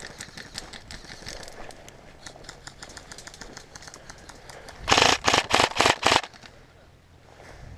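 Dry leaves and twigs crackling as a player moves through brush, then a brief run of about five loud knocks and rubs right at the microphone, about five seconds in, as the airsoft rifle is handled.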